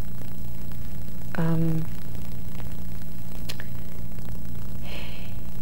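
Steady low electrical mains hum in the recording, with a short voiced 'mm' from a person about a second and a half in.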